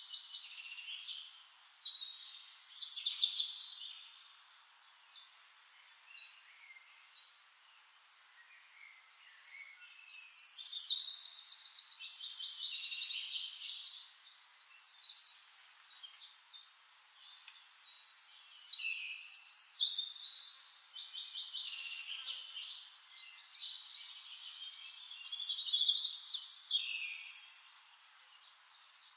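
Songbird song: high-pitched phrases of rapid trills and chirps, coming in several bouts a few seconds long with quieter pauses between.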